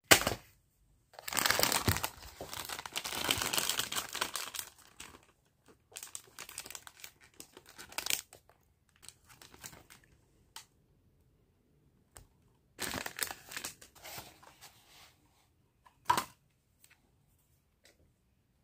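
Plastic snack wrappers crinkling and tearing as packets are unwrapped by hand, in irregular bursts separated by short pauses.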